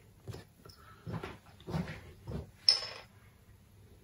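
Small objects being handled and set down on a wooden workbench: several soft knocks and rustles, then a sharp clink with a brief high ring a little under three seconds in.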